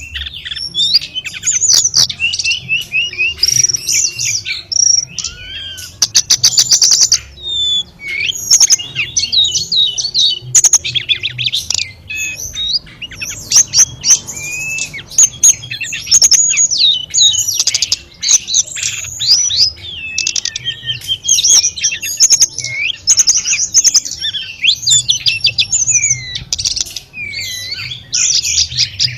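Tledekan gunung songbird singing a fast, varied song of high whistles, trills and chatter, over a steady low murmur of trickling water.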